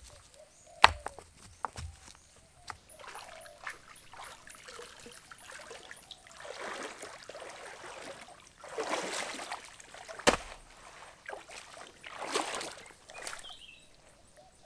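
Water sloshing and splashing in several swells, with a few sharp knocks, one about a second in and a louder one near ten seconds.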